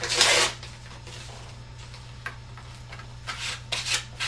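Brown shopping-bag paper rustling loudly in the hands at the start. Near the end, a run of short scrubbing sounds as hands rub glued paper strips flat onto cardboard.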